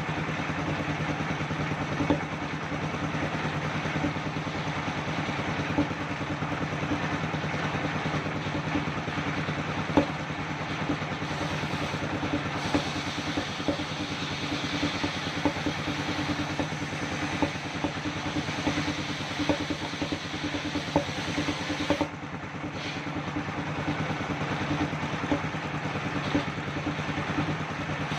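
Sawmill circular saw machine running steadily: an even engine hum with a wide noisy whir above it and scattered short clacks.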